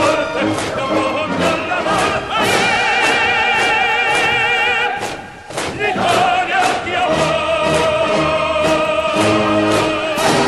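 March music with voices singing held, wavering notes over a steady drum beat of about two strokes a second, briefly dropping away about five seconds in.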